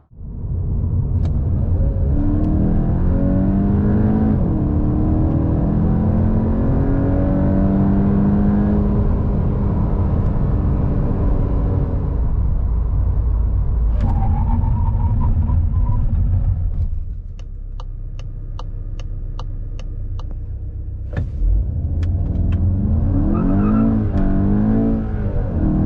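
2023 Volkswagen Golf GTI's 2.0-litre turbocharged four-cylinder accelerating hard, its engine note climbing in several rises as the dual-clutch gearbox changes up. About two-thirds of the way in it eases off and a run of about eight evenly spaced ticks sounds. Near the end the engine revs up again.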